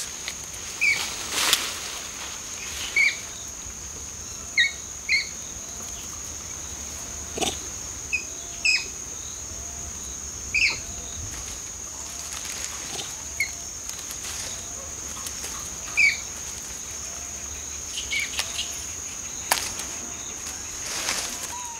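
Tropical forest ambience: a steady high insect drone from crickets, short bird chirps every second or two, and a few sharp cracks from the foliage.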